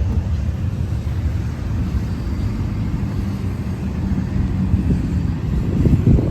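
A 6.7 L Power Stroke V8 diesel in a 2012 Ford F450 idling steadily with a low rumble, swelling slightly near the end.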